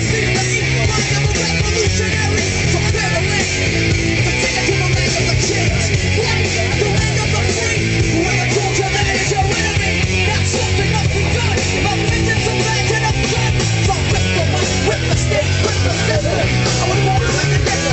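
Loud punk-style rock music playing steadily, with a singing voice.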